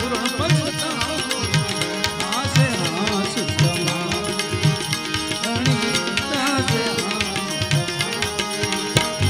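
Live Gujarati devotional bhajan music: a harmonium holding sustained chords over a steady hand-drum beat, with a man's voice singing in drawn-out phrases.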